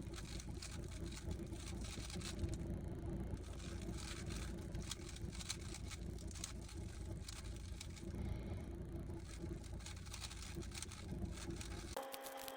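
A 3x3 Rubik's cube being turned quickly: a dense run of small plastic clicks and clacks over a steady low background hum. Near the end the hum drops out and a short steady tone starts.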